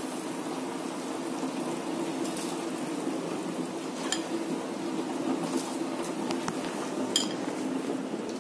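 Pot of water boiling for parboiling biryani rice: a steady bubbling hiss, with a few light clinks of a utensil against the pot.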